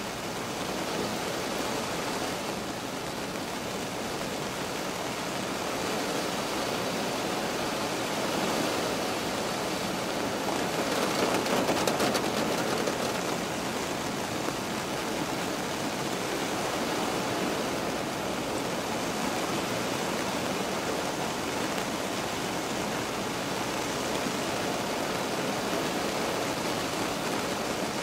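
Steady summer-night rain heard from inside a car, an even hiss of rain on the roof and glass that swells a little about halfway through.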